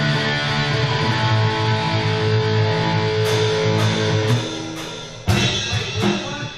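A live guitar-and-drums band: a strummed guitar chord rings and fades out about four seconds in, then a few sharp crashes follow, the loudest about five seconds in.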